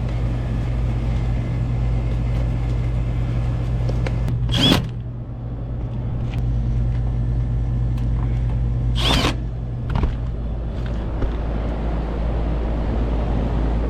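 Rooftop gas pack HVAC unit running: a steady low hum over fan noise. The hum's tone drops out about nine seconds in. Two short, sharp sounds come about four and a half and nine seconds in.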